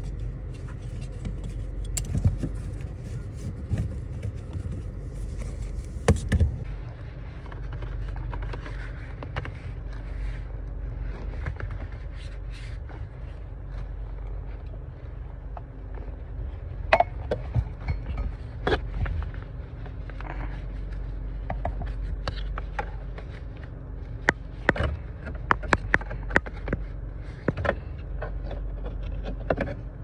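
Irregular clicks, knocks and scrapes of hands and gear being handled under a car's dashboard, over a steady low rumble. The sharpest knocks come in a cluster in the second half.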